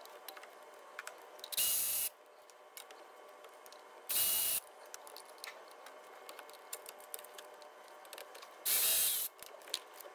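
A cordless power tool with a Torx 30 socket whirring in three short bursts of about half a second each, spinning out the EGR valve housing bolts. Small clicks and knocks of the socket and bolts come between the bursts.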